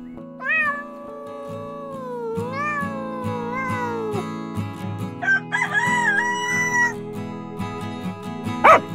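Animal calls over steady background music: a cat giving one long meow that falls in pitch, then a rooster crowing about two-thirds of the way through. Right at the end comes a single sharp dog bark.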